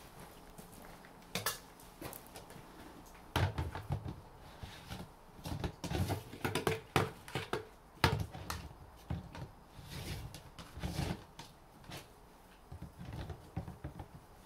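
Round plastic lid of a Gamma feed storage bin being worked shut: a run of hollow plastic knocks, clicks and scraping as the lid is pushed and turned on the rim. It is hard to get it to close. The handling starts a few seconds in, is busiest in the middle, and tails off near the end.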